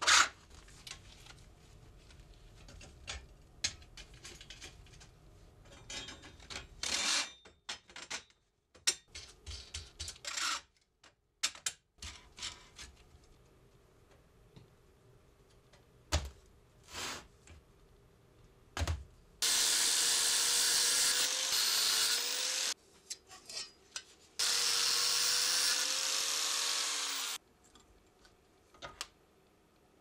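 Steel tubes and brackets knocking and clinking against each other and the metal bench top as a frame is fitted together. Later come two loud stretches of about three seconds each, separated by a short pause, from a handheld power tool running under load, its pitch dipping as it bites.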